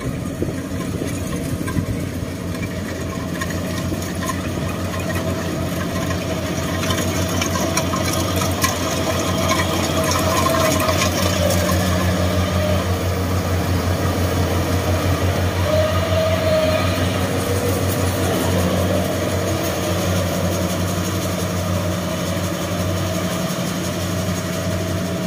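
Rice combine harvester's engine running steadily as it cuts through the paddy, getting louder as the machine passes close in the middle and easing off again near the end.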